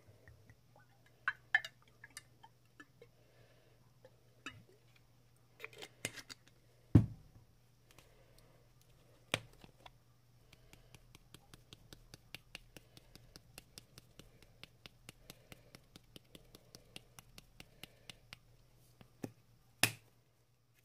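Spice shakers handled and shaken over chopped vegetables in a ceramic baking dish: scattered clicks and knocks with a louder thud about seven seconds in, then a quick even run of small taps, about four a second, as a dried-herb shaker is shaken over the dish, and two clicks near the end.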